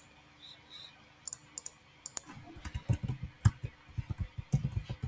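A few sharp mouse clicks, then from about two seconds in a quick run of keystrokes typed on a computer keyboard.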